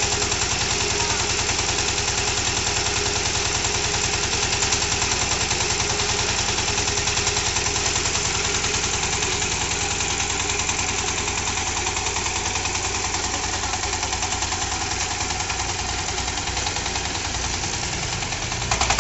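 Single-cylinder diesel engine of a new two-wheel power tiller running steadily with an even, rapid thudding beat, briefly louder right at the end.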